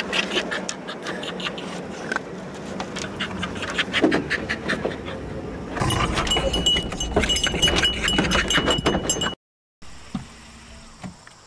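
Beagles in a pickup truck's bed, panting and shuffling about with many small clicks and rustles. From about six seconds in there is a high, thin, steady whine that breaks off and on.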